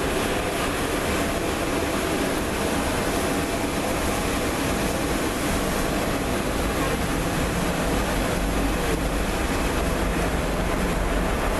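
Boeing 777 airliner's jet engines giving a steady rushing roar as it rolls out on a wet runway after touchdown, with a deeper low rumble building about eight seconds in.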